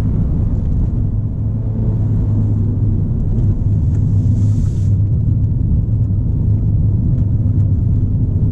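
Ford Fiesta ST being driven gently: steady low drone of engine and road noise, with a short hiss about four seconds in.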